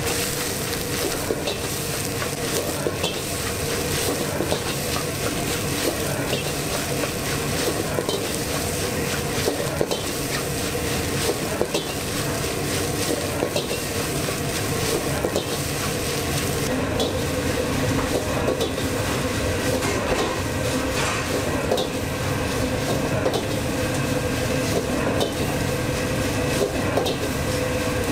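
Fried rice sizzling in a hot wok while a metal ladle scrapes, stirs and knocks against the pan many times in an irregular rhythm, with a steady hum underneath.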